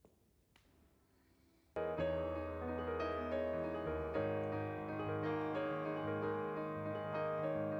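Faint quiet room sound with a couple of soft clicks, then background piano music starts abruptly about two seconds in and carries on.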